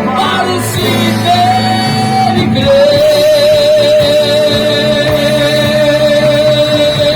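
Live band of drums, electric guitar, bass and keyboard playing a Christian rock song with a male singer; about two and a half seconds in, a single long note is held steady over the band.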